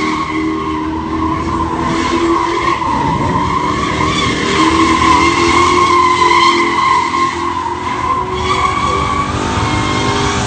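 Black Lexus sedan doing donuts: its tyres squeal in a steady, high screech over the engine held at high revs.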